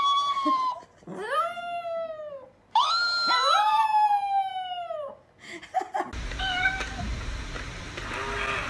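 Chihuahua howling: about four long howls, each rising at the start and then sliding down in pitch. From about six seconds in, the howling gives way to a steady background hiss with faint short tones.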